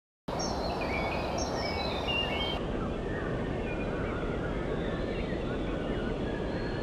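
Birds chirping and twittering over a steady outdoor background noise, which starts abruptly just after the beginning.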